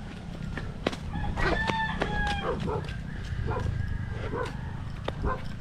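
A rooster crowing, with the wind rumbling on the microphone.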